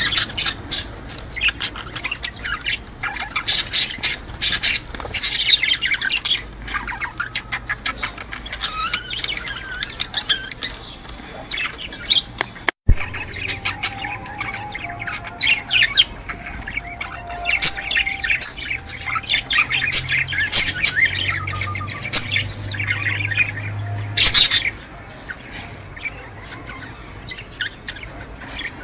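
A flock of small cage birds chirping and squawking, many quick high-pitched calls overlapping, with a momentary break about 13 seconds in.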